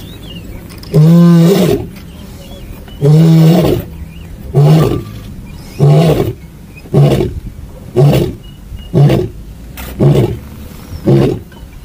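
Male Maasai lion's roaring bout: two long full roars, then a run of shorter grunting roars about one a second, each a little briefer than the last.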